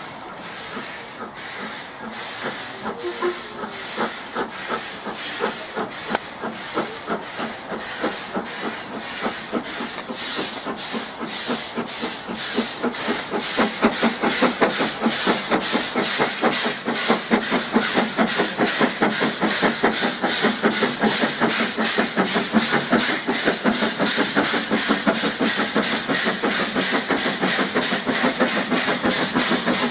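Two steam locomotives working a double-headed train, LMS Jubilee 4-6-0 45690 Leander and LMS 8F 2-8-0 48151: a steady, even chuffing of exhaust beats with steam hiss, growing louder as the engines approach and loudest from about halfway through.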